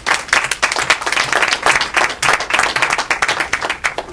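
Audience applauding: many people clapping together, dense and steady, thinning out near the end.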